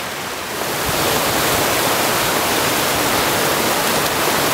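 Rushing water of a small mountain stream, the Santa Ana River: a steady rush that gets louder about a second in.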